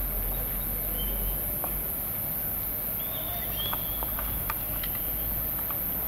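Scattered, irregular sharp cracks of distant gunfire over a steady low rumble: military shots fired into the air to ward off looters. A few brief high whistle-like tones come through now and then.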